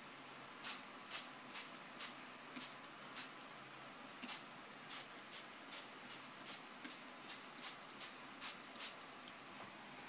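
Hand-held spray bottle squirting mist: a quick series of short hisses, about two a second, with a short pause around four seconds in, stopping about a second before the end.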